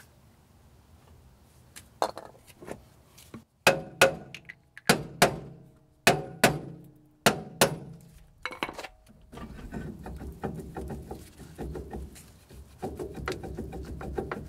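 Sharp, ringing hammer blows on the steel rear brake drum of a 1984 Dodge D50 pickup, about nine strikes, mostly in pairs, to break the stuck drum loose. About two-thirds of the way through they give way to a run of lighter metallic clanks and rattles as the drum is worked off the hub.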